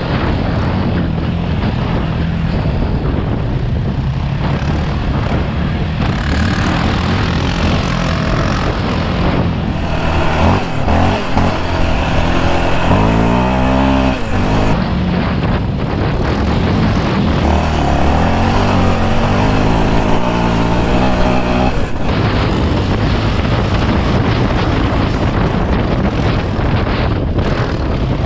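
Yamaha Raptor 700R's single-cylinder four-stroke engine, fitted with an aftermarket Monster exhaust, running loudly under throttle while the quad is ridden. The revs rise and fall, and about halfway through they dip and climb again.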